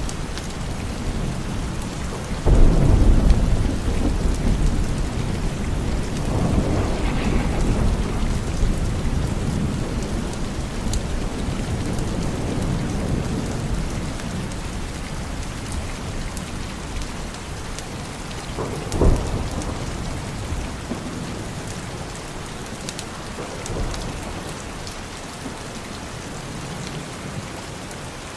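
Steady rain with thunder: a loud rumble a few seconds in, another rolling rumble a few seconds later, and a sharper, shorter clap about two-thirds of the way through.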